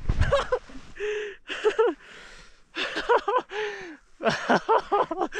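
A snowboarder's breathless, wordless vocal sounds while riding through deep powder: short gasps and voiced noises of effort in quick clusters, with hard breathing between them.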